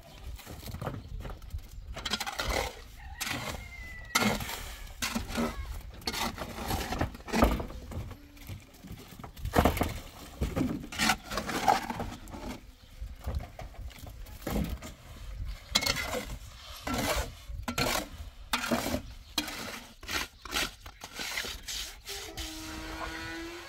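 Irregular scraping and knocking from a steel trowel and metal mortar bowls as cement mortar is worked over a corrugated sheet-metal roof.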